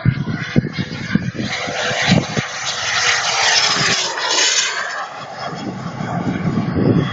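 Turbine-powered RC model jet making a fast pass: a hissing rush of turbine noise that swells to a peak about three to four seconds in, its pitch falling as it goes by, then easing off.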